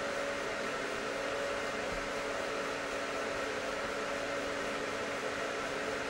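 Steady hum with an even hiss, unchanging throughout.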